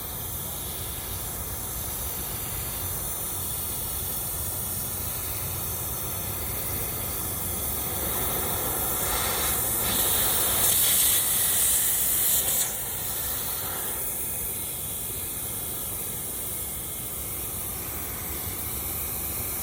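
Compressed air rushing and hissing through a dryer vent duct as it is blown clean of lint, with a louder blast about halfway through that cuts off suddenly.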